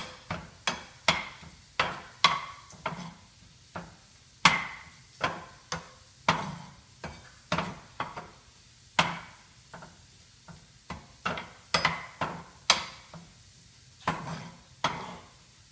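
Metal spoon knocking and scraping against a frying pan while stirring pieces of jackfruit rind deep-frying in oil, with irregular clinks about once or twice a second.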